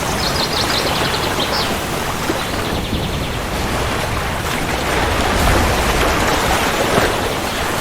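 Steady heavy rain, with a low rumble of thunder swelling about five seconds in.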